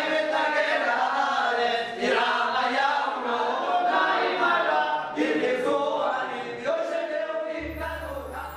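Several voices singing together unaccompanied in a chant-like style. About a second before the end, instrumental music with a steady low bass comes in as the singing fades.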